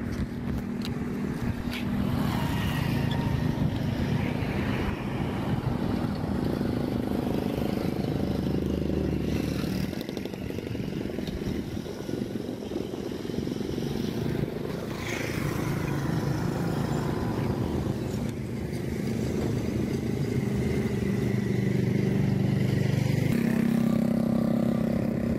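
A vehicle engine running steadily on the move, with road and wind noise. The engine note drops about ten seconds in and rises again near the end.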